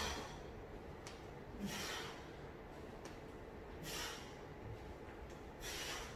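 A man's sharp breaths out with each sit-up during hard abdominal exercise, four short breaths about two seconds apart.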